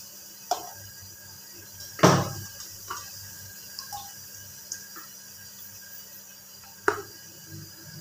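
Water in a non-stick pan with a steady faint hiss, and a utensil knocking against the pan four times, loudest about two seconds in.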